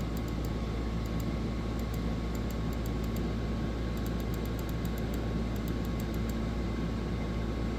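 Steady low hum and hiss of room tone, with faint clusters of quick, light ticks scattered through it.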